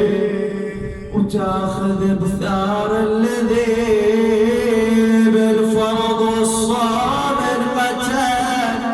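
A man chanting a mournful Arabic elegy (a Shia lament) in long, drawn-out, ornamented notes that waver and glide, pausing briefly for breath about a second in.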